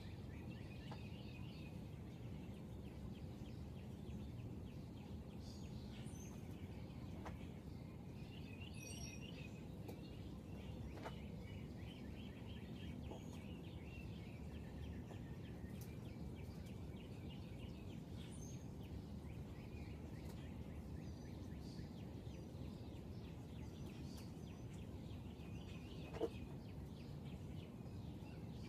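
Faint chirps and short trills of small birds over a steady low rumble, with one sharp click near the end.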